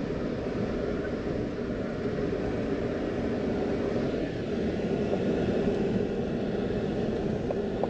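A truck runs at a steady pace, giving a steady low rumble of engine and road noise.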